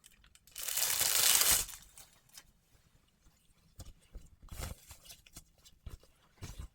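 A restraint strap being pulled and fastened: one long tearing rasp about half a second in, then soft clicks and rustles of handling, with a shorter scrape near the middle.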